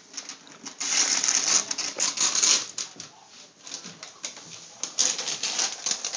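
Wrapping paper being torn and crinkled off a gift box by small hands, in two spells of rustling, about a second in and again near the end.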